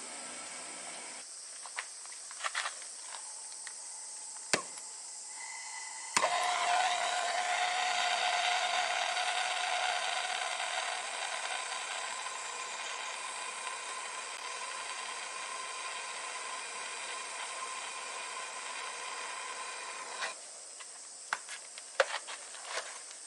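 Suzukid Arcury 100 semi-automatic wire welder running gasless stainless wire: a few brief sharp pops, then about six seconds in a continuous weld bead of about fourteen seconds, the arc hissing and crackling steadily before it cuts off, followed by a few more sharp pops near the end.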